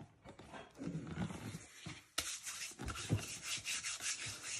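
Rubbing and scraping handling noise: soft rustles and a few low knocks, then about two seconds in a run of quick rasping strokes, about four or five a second.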